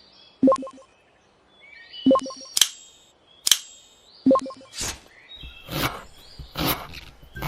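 Sharp clicks and knocks about a second apart over chirping birds, then a run of whooshing swishes in the last few seconds.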